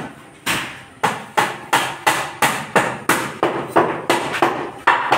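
Steady series of sharp hammer-like blows, about three a second, starting about half a second in, each one dying away quickly.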